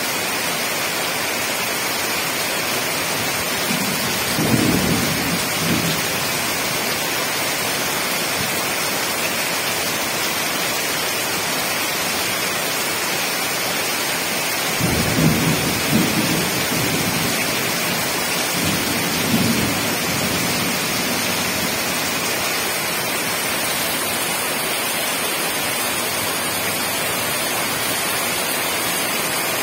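Heavy rain falling steadily, with deep rumbles of thunder: a short one about four seconds in, and a longer one from about fifteen seconds that trails off near twenty.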